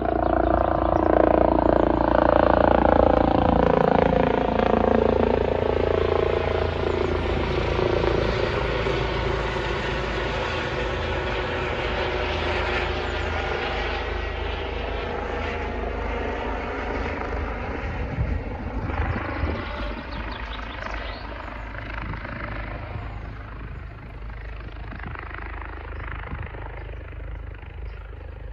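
Helicopter flying overhead, its rotor and engine loudest in the first few seconds, then fading slowly as it moves away.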